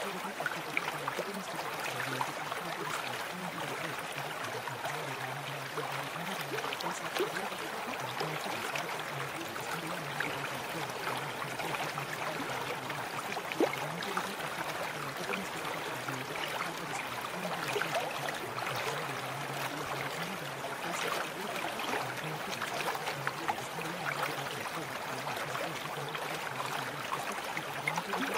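Continuous running water like a babbling stream, full of small splashes and trickles, with a low hum underneath.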